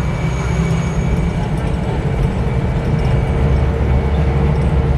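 Mitsubishi Canter bus diesel engine running steadily under way, a deep continuous rumble heard from inside the cabin beside the driver.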